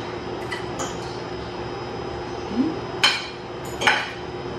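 Metal fork and spoon clinking and scraping against a dinner plate while eating: a couple of light clinks early, then two sharper ones about three and four seconds in.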